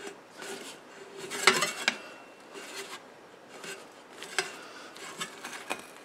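A thin sheet-metal cone blank being bent by hand around a steel pipe clamped in a vise, rubbing and scraping against the pipe in irregular strokes with a few sharp metallic ticks. The loudest scrape comes about one and a half seconds in.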